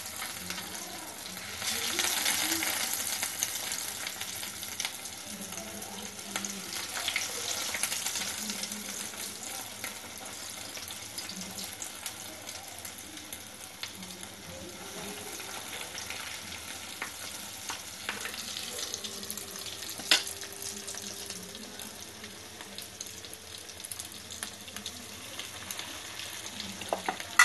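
Crumb-coated bhetki fish chops deep-frying in hot oil in a wok: a steady sizzle and crackle, louder from about two seconds in as more chops go into the oil. A single sharp click about twenty seconds in.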